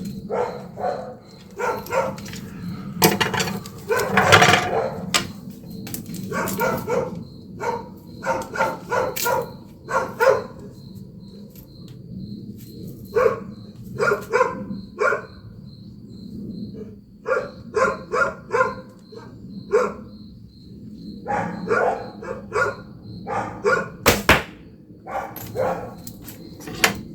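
Dogs barking repeatedly in short bouts, with one sharp knock about three-quarters of the way through.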